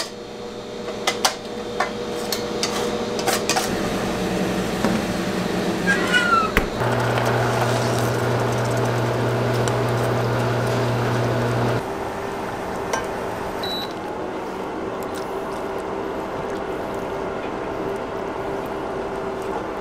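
Kitchen appliance hum that holds steady, with a deeper hum joining for about five seconds in the middle. A few light clicks of utensils on steel come in the first few seconds.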